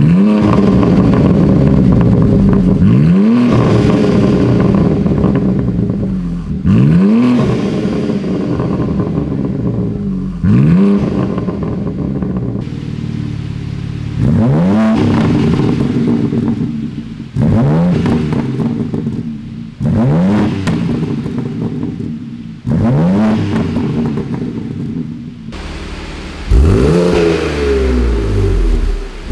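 BMW M4 Competition's S58 twin-turbo straight-six revved through an Akrapovic titanium exhaust. The engine is blipped about ten times, each rev rising sharply and falling back over a second or two, and the sound cuts abruptly between short takes.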